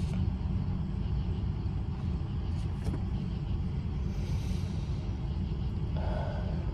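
Steady low rumble inside a car's cabin, with a faint hiss about four seconds in.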